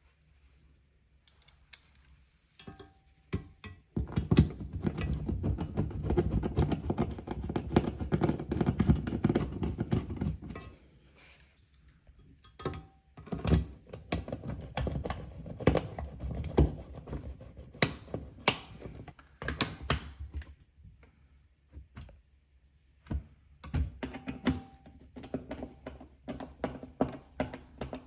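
Rapid clicking and knocking of hands working with hardware: a dense run of clicks starting about four seconds in and lasting some six seconds, then scattered single knocks and clicks.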